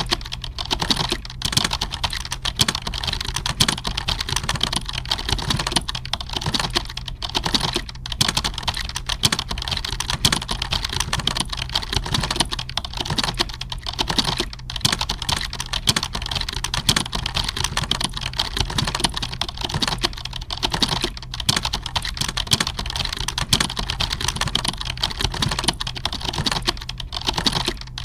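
Computer keyboard typing: rapid, continuous key clicks with no real pauses, over a steady low hum.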